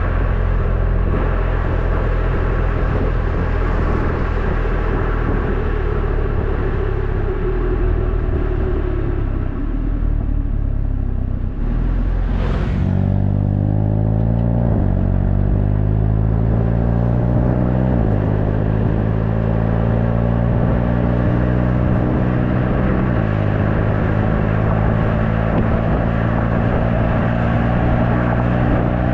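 Volkswagen Golf GTI TCR's turbocharged four-cylinder engine heard through its stock stainless-steel exhaust. The engine note sinks as the car slows for the first dozen seconds, then it accelerates through the gears, the pitch climbing and dropping back at three upshifts.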